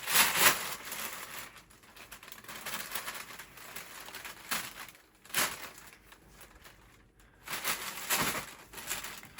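Packaging and clothing rustling and crinkling as they are handled, with a few louder crinkles about half a second in, near the middle and near the end.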